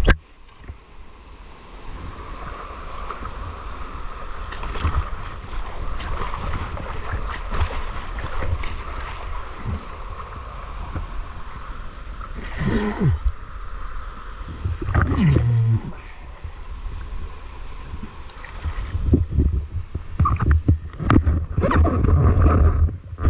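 Steady rush of stream water in a rocky canyon, with wind noise buffeting the microphone. Two short sliding pitched sounds rise above it about halfway through.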